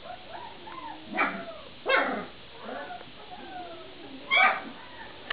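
Vizsla puppies yapping: three short, sharp yaps, about a second in, at two seconds and past four seconds, with faint whining and whimpering from the litter between them.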